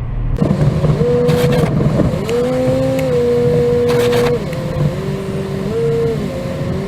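Car driving, heard from inside the cabin: a steady low road rumble under an engine tone that steps up and down in pitch several times. Two short rushes of noise break in about a second and a half in and again around four seconds in.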